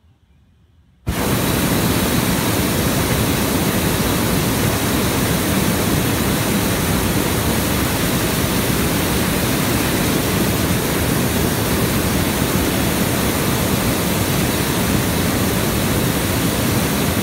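Hot-air balloon's propane burner firing in one long continuous blast, a loud, steady rushing hiss that switches on abruptly about a second in and cuts off abruptly at the end.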